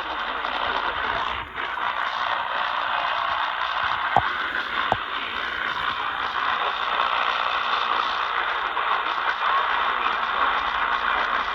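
Steady static hiss from a radio receiver between broadcasts, with two sharp clicks about four and five seconds in.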